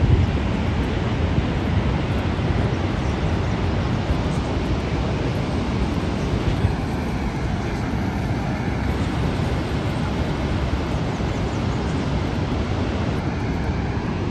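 Steady roar of Niagara's American Falls and the churning river below it.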